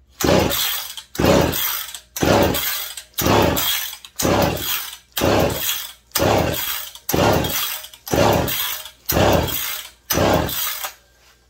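McCulloch PM 700 two-stroke chainsaw being pull-started: eleven hard pulls of the recoil starter, about one a second, each a rasping whirr of the cord and the engine turning over without firing. The owner takes the engine for flooded.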